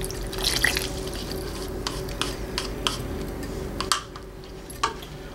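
Cornstarch-and-water slurry poured into a pot of simmering braised beef stew to thicken it, followed by a few sharp clicks and taps against the pot, over a steady hum.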